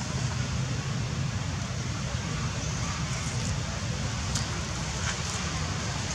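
Steady outdoor background noise: a low rumble under an even hiss, with a few faint clicks about four and five seconds in.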